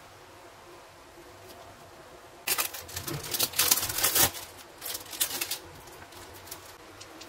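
Plastic wrapping of processed cheese slices crinkling as it is peeled and handled, in a dense burst about two and a half seconds in, followed by a few shorter rustles.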